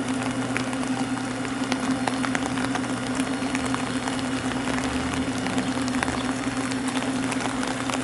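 Steady rain falling, with many small drips ticking, over a constant low hum.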